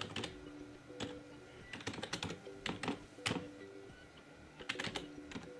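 Typing on a laptop keyboard: a user name and password keyed in, in short irregular bursts of clicks.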